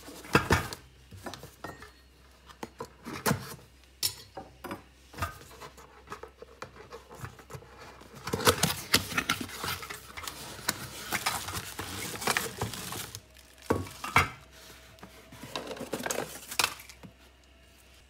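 Unboxing handling: a cardboard box is turned over and opened with scattered taps and knocks, then a long stretch of crinkling and scraping as the cellophane-wrapped stainless steel coffee plunger is slid out of its cardboard packing, followed by a couple of knocks as it is put down on a wooden table.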